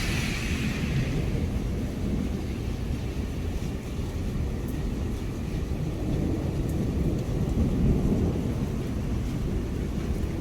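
Thunder rumbling continuously during a thunderstorm, a low rolling rumble that swells about eight seconds in.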